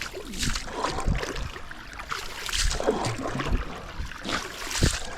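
River water splashing and lapping in irregular surges, with a low rumble of wind on the microphone.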